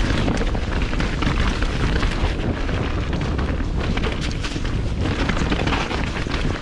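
Mountain bike descending a dirt forest trail at speed: a steady low rumble and rush of tyres and wind buffeting the microphone, with many small knocks and rattles from the bike over the rough ground.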